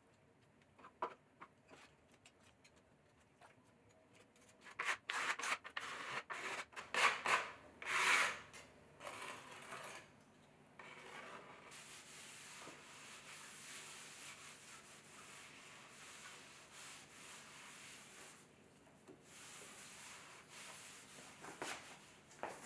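Cleaning wet clay off a pottery wheel and its wooden work board: a few light knocks, then a run of loud scraping strokes, then a steady soft rubbing as a damp sponge wipes the board.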